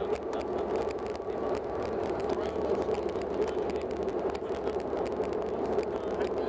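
Steady cabin noise of a Bombardier Dash 8-Q400 turboprop taxiing: its Pratt & Whitney PW150A engines and six-bladed propellers running with an even drone and a low rumble beneath.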